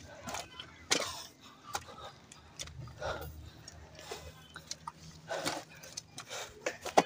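A man breathing hard in irregular heavy breaths while carrying a heavy load of firewood on his shoulder in the heat, with a few sharp scuffs and clicks mixed in.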